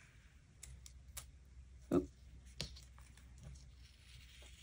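Quiet handling of a paper sticker sheet as a sticker is worked off it: a few soft clicks and taps, the loudest about two seconds in, over a faint low hum.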